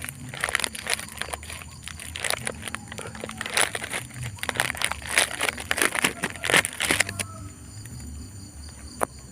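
Irregular rustling and crackling of galangal stalks and leaves being handled, stopping abruptly about seven seconds in. After that a steady high-pitched whine remains, with one sharp click near the end.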